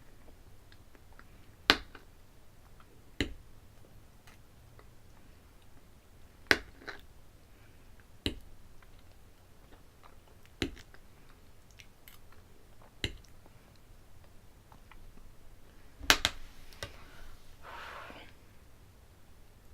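Eating sounds: chewing, broken by about seven sharp clicks at irregular intervals, then a short breathy noise near the end.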